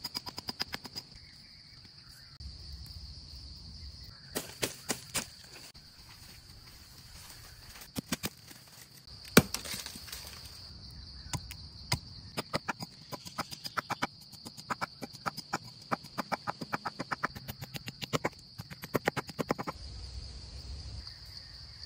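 A blade chopping and carving wood: runs of quick sharp taps and knocks, with one loud blow about nine seconds in. A steady high insect drone underneath.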